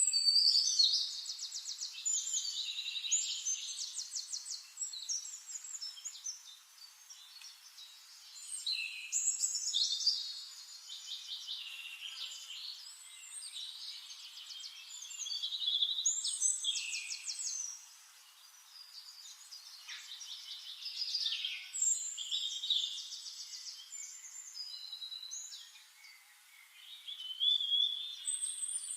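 Forest songbirds singing: high, fast trilled phrases that come again every few seconds.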